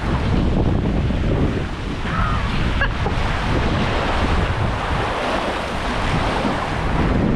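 Steady rushing of water, with wind buffeting the microphone.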